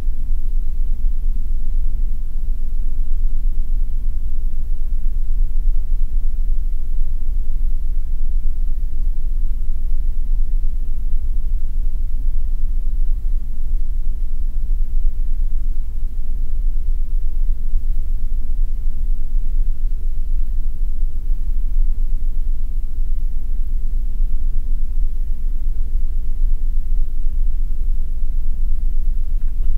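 Steady low rumble with a faint hum, unchanging throughout.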